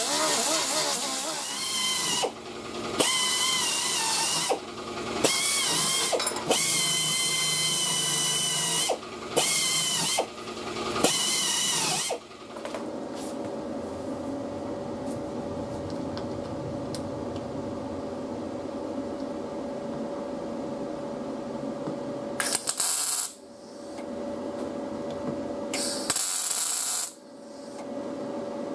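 A small disc sander grinds the dented fender body line down to bare metal in a run of bursts, its whine rising and falling with each pass. It stops about twelve seconds in. A steady hum follows, broken near the end by three short crackling bursts of MIG welding as metal is tacked on along the body line for pulling.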